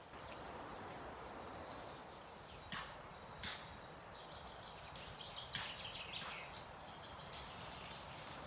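Scattered sharp knocks and snaps, a few of them trailing into a brief scrape, over a steady background hiss, starting a little under three seconds in.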